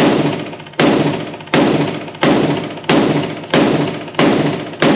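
Springfield Hellion 5.56 bullpup rifle firing a steady string of semi-automatic shots, eight in all, about one every 0.7 seconds, each shot fading in an echoing tail before the next.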